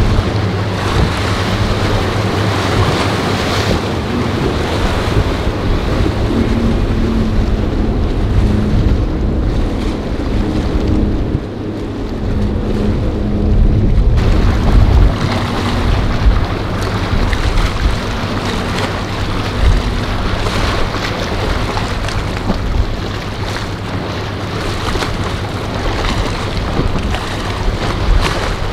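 Outboard motors of center-console fishing boats running through rough inlet waves, with surf breaking and wind noise on the microphone.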